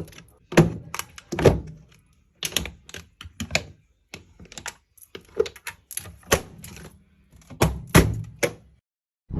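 An irregular string of hard knocks and thunks, about fifteen over several seconds, like objects being handled and set down.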